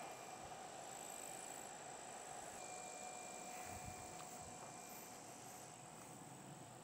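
Faint outdoor background: a steady, high-pitched insect drone with a few faint, high chirps.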